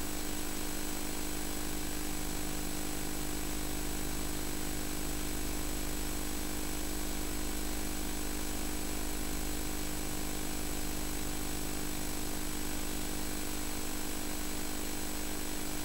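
Steady electrical hum and hiss with a few constant tones and nothing else: the noise floor of an analogue videotape's audio track carrying no programme sound.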